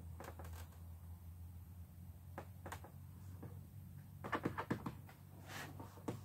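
Light clicks, knocks and creaks of a flattened PVC rib being handled and pressed against a plastic barrel hull, with a cluster of louder knocks about four and a half seconds in, over a steady low hum.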